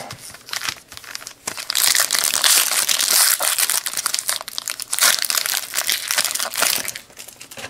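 Plastic wrapper of a Donruss baseball card pack being crinkled and crumpled by hand, a dense crinkling that lasts about five seconds, with lighter rustles and clicks of card handling before and after.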